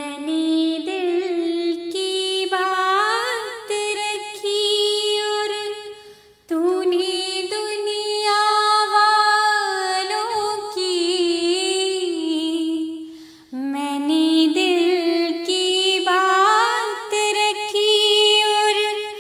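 A woman singing lines of Urdu poetry unaccompanied, in three long drawn-out phrases with wavering, ornamented pitch and short breaks between them.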